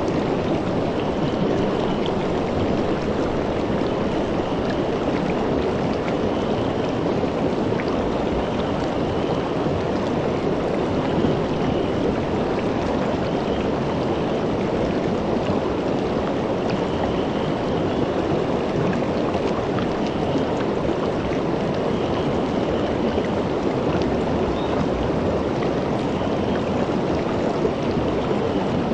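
Shallow rocky river running over stones and around a boulder: a steady, even rush of water.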